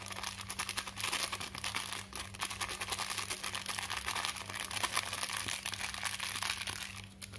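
Plastic seasoning sachet of Royco powdered stock crinkling without a break as it is squeezed and shaken to tip the powder into a bowl; the crinkling stops just before the end.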